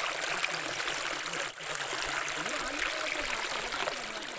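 Steady rush of flowing water, with faint voices underneath. The sound cuts out for a moment about one and a half seconds in.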